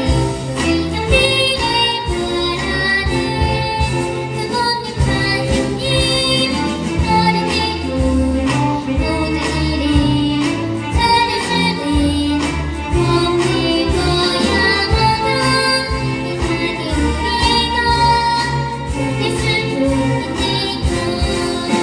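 Children's choir singing a song over a recorded backing track with a steady bass beat.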